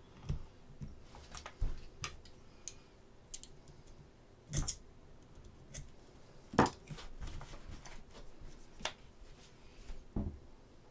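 Scattered clicks and knocks of tools and resin model parts being picked up and set down on a workbench cutting mat, the two loudest sharp knocks about four and a half and six and a half seconds in.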